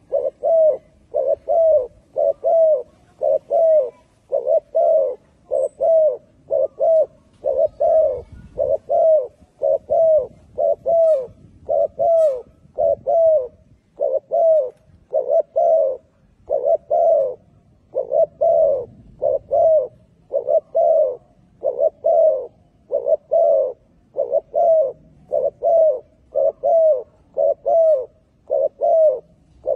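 Spotted dove cooing without pause: short, low, pitched coos in runs of two and three, a little over two notes a second.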